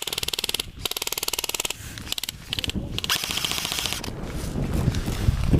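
Airsoft electric rifle firing full-auto: rapid clicking shots at roughly twenty a second, in a long burst at the start and another burst about three seconds in.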